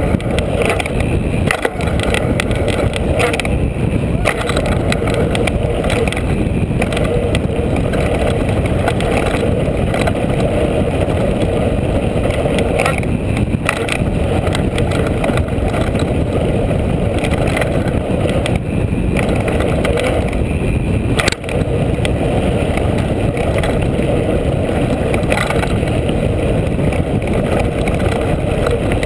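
Mountain bike rolling fast down a dirt trail, heard from a camera mounted on the bike: a steady loud rumble of tyre on dirt and wind on the microphone, with short rattles and knocks from the bike over bumps.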